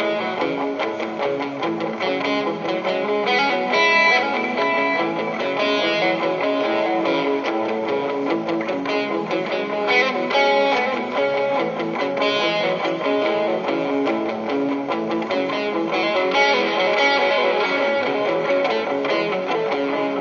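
Ibanez AS-73 semi-hollow electric guitar played live through an effects pedal chain and a Peavey Classic 30 tube amp, a continuous passage of changing notes without pause.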